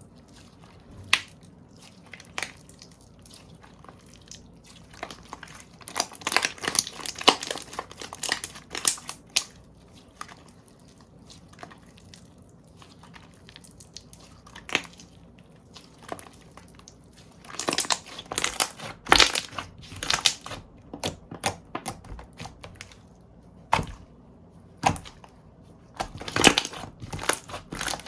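Slime being pressed, stretched and squeezed by hand. It gives clusters of rapid clicks and crackles, with single sharp pops in the quieter stretches between.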